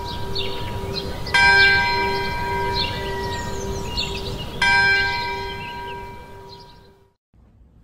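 A church bell tolling, struck twice about three seconds apart, each stroke ringing on and slowly fading. The sound cuts off suddenly near the end.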